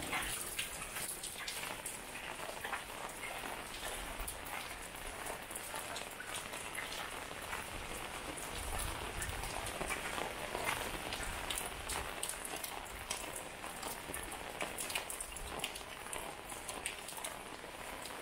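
Steady rain falling on wet pavement and surrounding surfaces, with many distinct drop hits ticking through the hiss.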